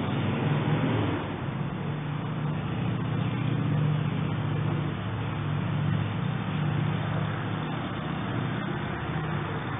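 Engine of a stationary vehicle held at high revs, a steady drone whose pitch and loudness shift slightly up and down. It is a NASCAR-like revving engine sound, which the neighbour takes for someone testing an engine in a carport or driveway.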